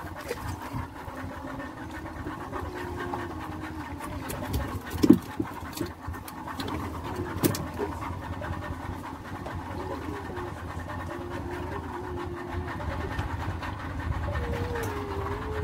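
A small fishing boat's engine running steadily, its hum wavering a little in pitch, with a couple of sharp knocks about five and seven and a half seconds in.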